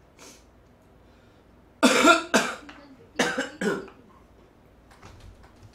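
A woman coughing: four sharp coughs in two pairs, about two seconds and three and a half seconds in.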